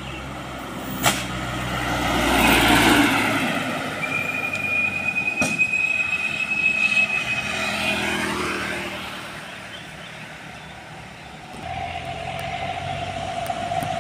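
Trucks driving past on a highway: engine and tyre noise swells as one goes by about three seconds in. A long steady high whine runs through the middle and bends downward as its source passes, and another steady tone sets in near the end as the next truck approaches.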